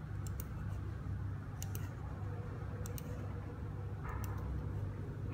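Computer mouse buttons clicking, several short clicks including quick double clicks, over a steady low hum.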